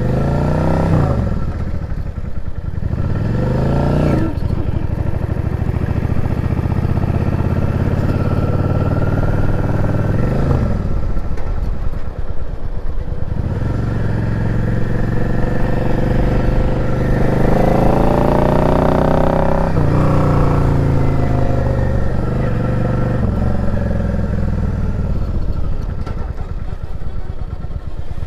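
Yamaha XVS650 V-Star's air-cooled V-twin engine under way on a ride, revving up and dropping in pitch several times as it is run up through the gears with a foot clutch and hand shift, with steadier running in between.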